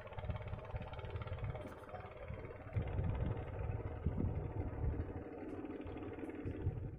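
A small engine running steadily at a constant pitch, its low rumble growing louder about three seconds in.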